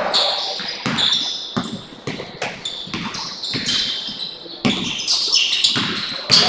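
Basketball dribbled on a hardwood gym floor, bouncing about twice a second, with short high squeaks of sneakers on the court as players move.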